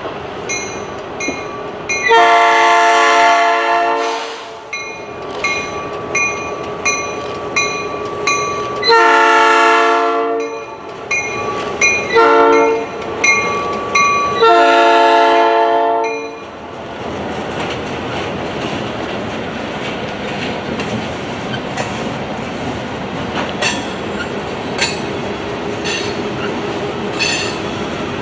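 Winchester & Western EMD diesel freight train passing close by. The lead locomotive sounds its horn in the grade-crossing pattern, long, long, short, long, over a bell ringing about twice a second. Then the locomotives and covered hopper cars roll past with the wheels clicking over the rail joints.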